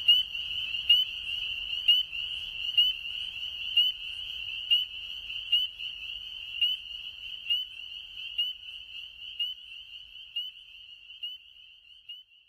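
Chorus of spring peepers: a steady high-pitched peeping chorus with a louder peep about once a second, fading out over the last few seconds.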